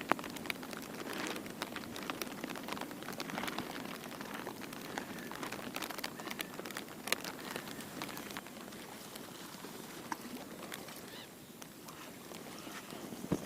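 Rain pattering, with scattered drops ticking sharply close by, over a steady rush of wind.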